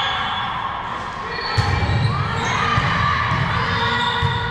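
Indoor volleyball play in a gym: a sharp hit of the ball about one and a half seconds in, amid short high squeaks and players' calls echoing in the hall.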